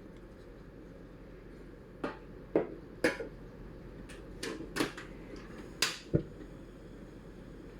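A string of about eight sharp knocks and clinks, like cups, utensils or containers being handled and set down on a kitchen counter, over a steady low hum.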